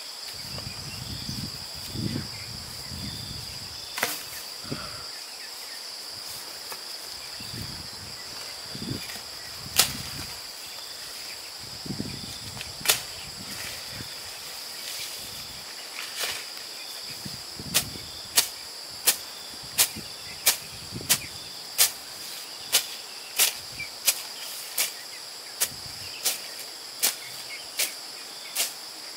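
Grass being cut by hand: sharp swishing strokes, scattered at first, then about one and a half a second in a steady rhythm through the second half. Insects shrill steadily in the background.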